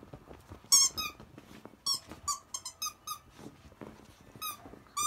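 Seven-week-old Akita puppies squealing while they wrestle: a string of short, high squeaky yelps, about nine in five seconds, the loudest about a second in.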